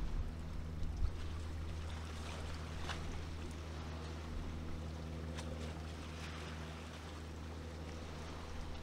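Steady low drone of a small motorboat's engine, with wind buffeting the microphone about a second in.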